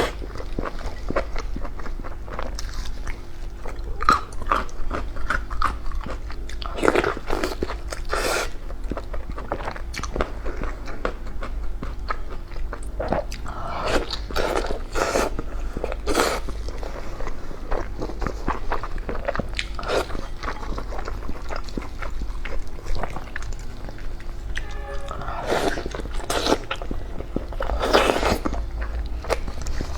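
Close-up eating sounds: a person chewing and biting food, with crunching, wet mouth clicks and several louder spells of chewing, over a steady low hum.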